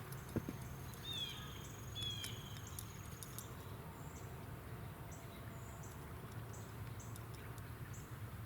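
Insects trilling in a high, steady, pulsing chorus, with two short falling bird chirps about one and two seconds in, over a low steady rumble.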